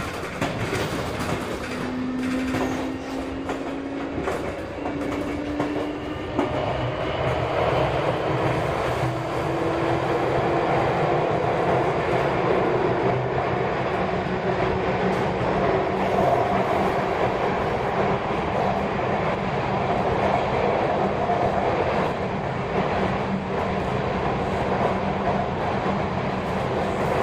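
Sotetsu 8000 series electric train heard from inside the car as it picks up speed. The traction motor whine climbs in pitch in several steps over the first dozen seconds, then steady wheel-on-rail running noise takes over, with occasional rail-joint clicks.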